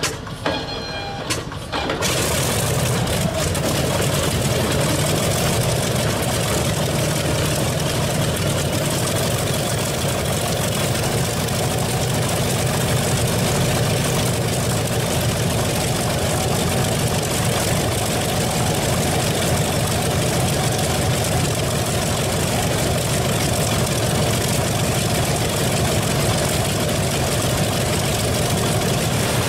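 Pratt & Whitney R-2800 Double Wasp 18-cylinder radial aircraft engine running steadily with its propeller turning, a loud, even rumble. For the first two seconds it is quieter, with a few sharp cracks, before the full steady engine sound comes in.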